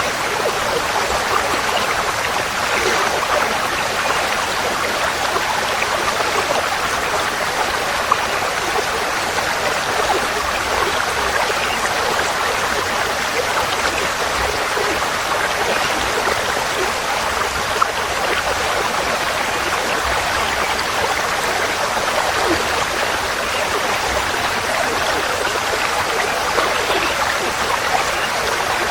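Forest stream flowing, a steady even rush of water.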